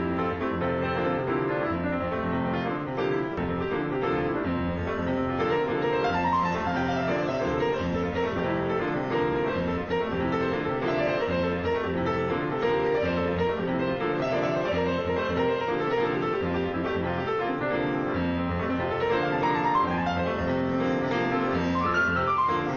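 Solo jazz piano improvisation: a continuous flow of chords over a sustained bass line, with quick melodic runs in the upper notes about six seconds in and again near the end.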